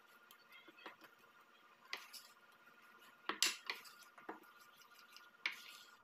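Metal spoon stirring thick cake batter in a glass bowl: faint scraping with scattered light clinks of the spoon against the glass, the loudest about three and a half seconds in.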